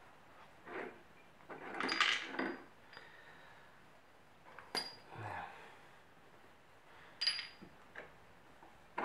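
Metal tools and engine parts clinking and knocking as they are handled, a handful of scattered strikes, some with a short metallic ring.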